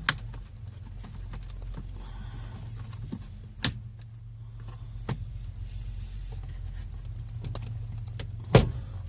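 Scattered clicks and knocks from handling plastic steering-column trim, over a steady low hum; the sharpest knock comes near the end.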